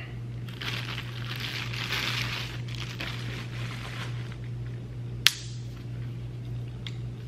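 Plastic wrapping crinkling and rustling as a cordless angle grinder is unwrapped, then one sharp click about five seconds in, over a steady low hum.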